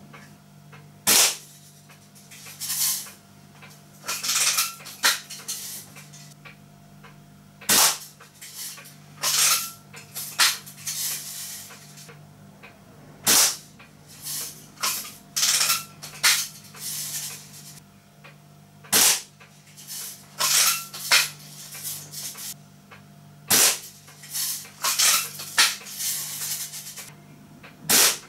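Daisy Red Ryder spring-powered BB gun fired six times, about every five seconds, each shot a single sharp snap. Between shots come short clattering bursts of the lever being worked to cock the spring.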